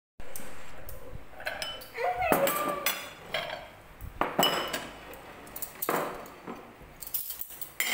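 Tableware clinking as food is served: spoons and serving utensils knocking against bowls, plates and a pot lid in a string of separate clinks, some ringing briefly.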